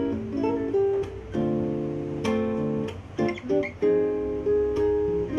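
Acoustic guitar played fingerstyle: a run of plucked chords and single notes, each ringing on after it is struck.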